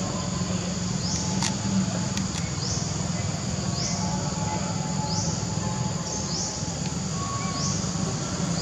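Outdoor forest ambience: a short high-pitched call, sweeping upward, repeats about every second and a half over a steady low hum.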